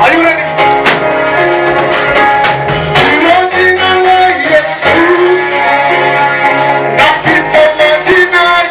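Live praise-and-worship music: singing over a band with guitar and drum kit.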